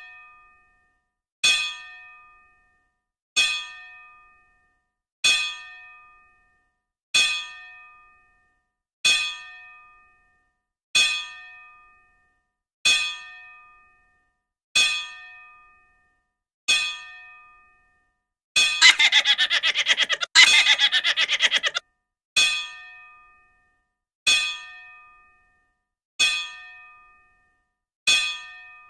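An edited-in bell-like chime sound effect repeats about every two seconds, each strike ringing briefly and dying away. About two-thirds of the way through, a rapid, loud rattling clatter lasts about three seconds, with a short break in the middle.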